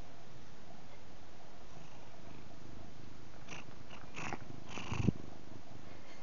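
British Shorthair cat purring steadily while being stroked. Late on come a few rustles and one loud knock, about five seconds in, as the cat's nose bumps right against the phone.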